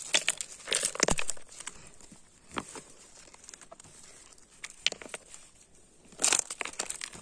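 Fingers scraping and prying in loose gravel and pebbles to dig out a piece of calcite, with irregular small clicks and scrapes of stone on stone. A cluster of them in the first second, a few single clicks in the middle, and the loudest burst about six seconds in.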